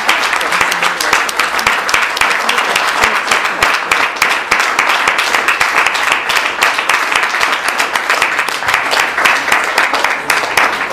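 Audience applauding: a long round of many hands clapping that begins to die away at the very end.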